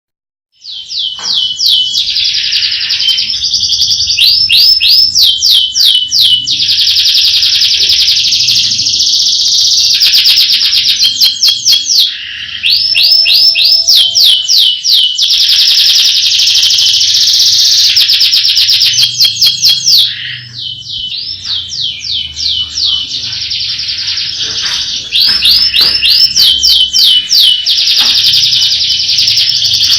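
Domestic canary singing a long, loud song of fast rolling trills and rapidly repeated high sweeping notes. It starts just under a second in, breaks briefly about twelve seconds in, and is softer for a few seconds past the twenty-second mark.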